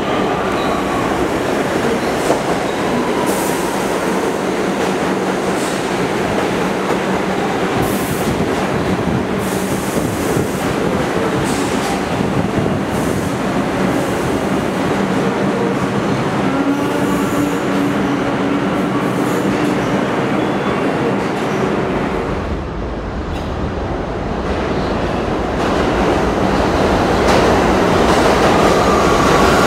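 New York City Subway train pulling into an underground station, running on the rails with some wheel squeal. After a cut about two-thirds through, another train passes at speed, its low rumble building louder near the end.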